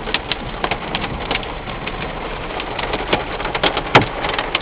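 Marble-sized hail coming down and striking hard surfaces: many sharp, irregular clicks over a steady rain-like hiss, with one louder hit about four seconds in.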